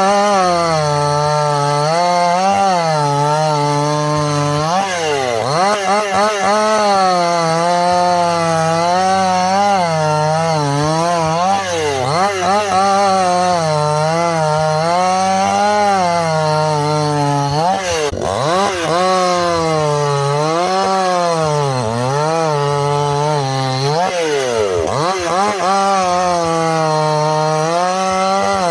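Two-stroke chainsaw running at high revs, cutting through wood. Its engine pitch wavers up and down as the chain bites and frees, and dips sharply four times as the throttle eases off between passes.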